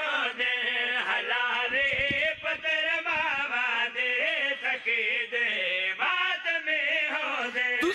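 Man's voice chanting a Punjabi qasida into a microphone, in a wavering melodic line with short breaks.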